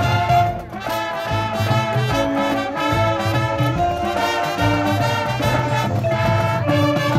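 High school marching band playing live: the brass section sustains melody notes over a steady drum beat.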